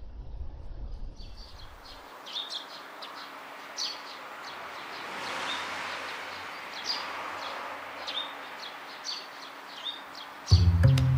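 Small birds chirping repeatedly in short, high, quick calls over a rushing outdoor hiss that swells midway. Background music comes in loudly near the end.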